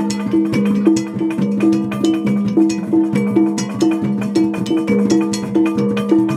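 Percussion music playing for a dance: a quick, evenly repeating metallic note over a steady low tone, with sharp drum and stick strikes.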